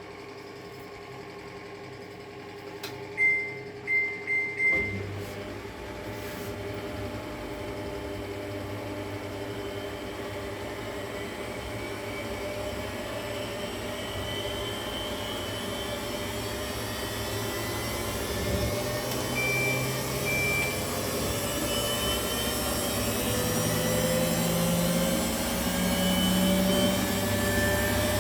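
Samsung Diamond washing machine beeping three times from its control panel, then its drum motor starting an empty spin in service mode. The whine climbs slowly as the drum speeds up toward 1200 RPM, with two more beeps about twenty seconds in.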